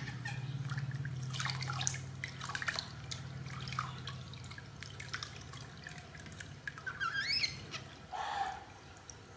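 Water splashing and dripping into a plastic basin as a baby monkey is washed by hand, with many small splashes in the first few seconds, over a low steady hum. A short rising squeak comes about seven seconds in.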